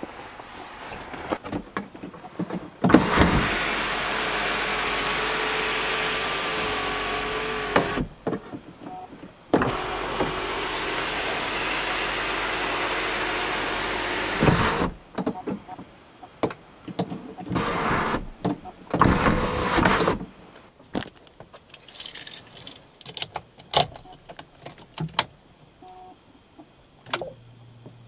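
2003 Volvo S80's electric sunroof motor running twice, each run about five seconds of steady motor whine, with a brief pause between. Afterwards, scattered clicks and knocks.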